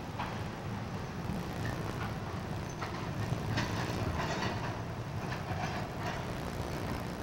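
Freight train of tank cars and boxcars rolling across a steel girder bridge: a steady low rumble with irregular clanks of the wheels on the rails about once a second.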